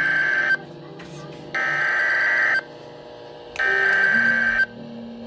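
NOAA Weather Radio SAME digital header: three harsh, buzzy bursts of warbling data tones, each about a second long and a second apart, the first cut short. They are the coded header that announces the severe thunderstorm warning and the affected counties to receivers.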